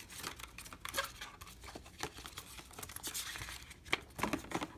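Paper and thin cardboard rustling and sliding as the black card document folder from a MacBook Air box is opened and the paper starter guide pulled out, with scattered small taps and scrapes that come thicker near the end.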